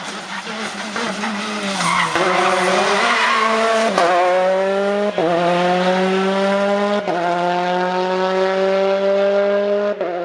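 Rally car engine accelerating hard through the gears, its pitch climbing in each gear and dropping at upshifts about four, five, seven and ten seconds in. A rush of noise from the car overlays the engine for a couple of seconds before the first shift.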